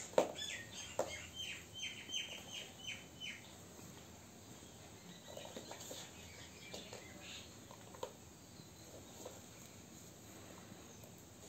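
A sharp tap at the start, then a quick run of about nine short high chirps over the next three seconds. After that come faint scuffles and soft taps as two cats paw at a shoe and its lace.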